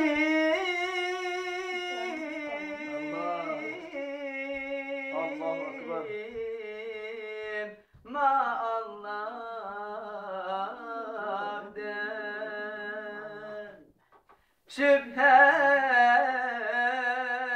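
A young man singing a Turkish ilahi (Sufi devotional hymn) unaccompanied, in long held notes with wavering ornaments. He breaks off for under a second near the end, then comes back in louder.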